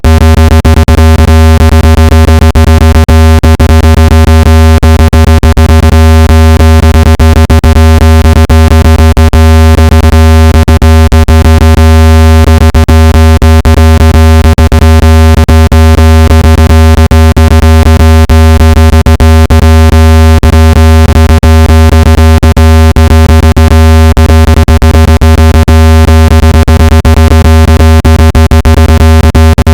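Loud, electronically generated speaker-cleaning tone, played to shake water and dust out of a phone speaker: a steady low buzzing pitch with overtones above it, broken by frequent rapid clicks.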